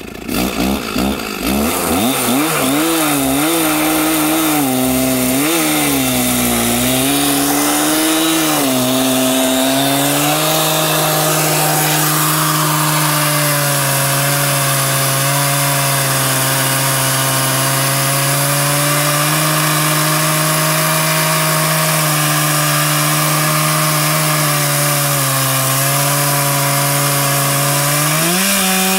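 Chainsaw on an Alaskan chainsaw mill starting up and revving unevenly for about ten seconds, then running at a steady high pitch at full throttle as it rips along a log. Near the end the pitch sags briefly, then rises again.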